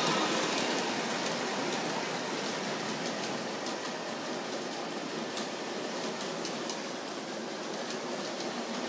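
Bachmann model train rolling along its track: a steady whirring clatter of metal wheels on the rails with a few light clicks, easing off a little over the first few seconds as the train moves away.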